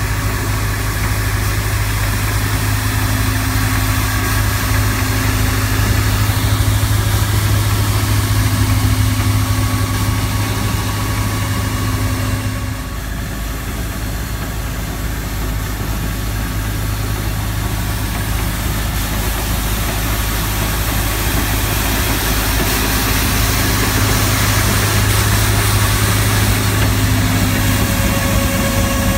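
Tennant 830 II Sentinel street sweeper running as it sweeps pavement: a steady low engine drone with faint steady whining tones above it. The sound dips and shifts briefly about twelve seconds in.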